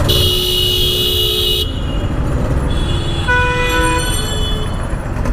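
Vehicle horns honking in stop-and-go traffic. One steady blast lasts about a second and a half at the start, and a second, shorter horn sounds about three seconds in. A low traffic and engine rumble runs underneath.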